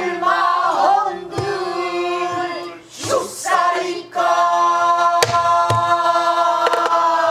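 A woman singing a pansori line in a bending, ornamented voice, ending on a long held note. A few sharp strokes on a buk barrel drum accompany her, several of them falling during the held note.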